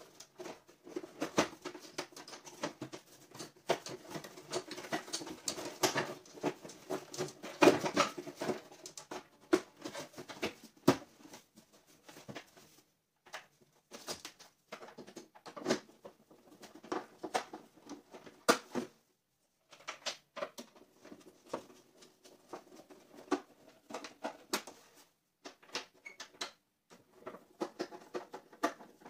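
Plastic rear casing of a CRT television being handled and fitted back over its chassis, with many scattered knocks, clicks and scraping. Later a hand screwdriver scrapes and clicks as the casing screws are driven in. There are two brief silent gaps, about 13 and 19 seconds in.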